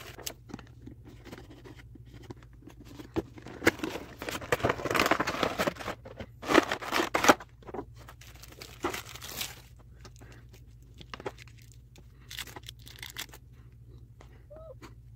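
Clear plastic blister packaging crinkling and crackling as it is handled and opened, in irregular bursts that are loudest in the first half, then sparse small clicks and rustles.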